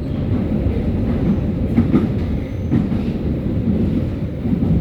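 Berlin U-Bahn train running on the track, a steady rumble with a few sharp clacks of the wheels over rail joints.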